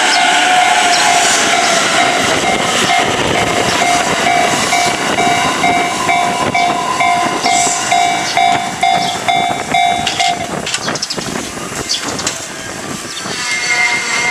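Japanese level-crossing warning bell ringing with a steady, evenly repeating ding while an electric train passes over the crossing with wheel clatter and rumble. The bell cuts off about ten seconds in, and a tone starts again near the end.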